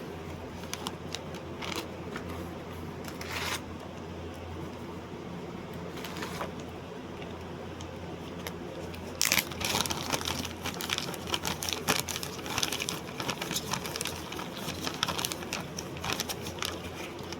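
Crinkling, crackling handling noise, a few scattered clicks at first and then a dense run of them from about nine seconds in, over a steady low hum.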